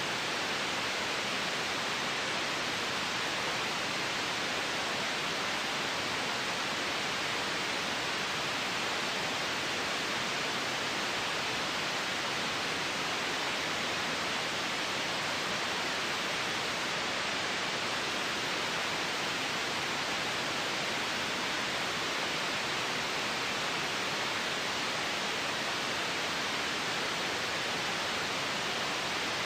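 Steady, unchanging hiss of electronically generated white noise for baby sleep, with most of its energy in the upper middle range and little bass.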